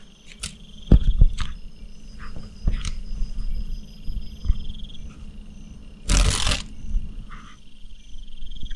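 A high, pulsing insect buzz that comes and goes, with scattered sharp clicks in the first few seconds and a loud, brief burst of noise about six seconds in.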